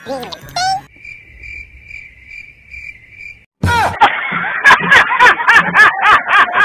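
Cricket chirping sound effect: an evenly pulsed high chirp repeating about three times a second. A little past halfway a loud, dense burst of sound with a quick pulse cuts in abruptly.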